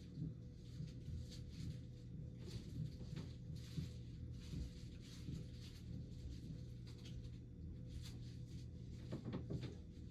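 Vacuum cleaner running muffled, heard as a steady low hum with soft irregular knocks scattered through it and a small cluster near the end.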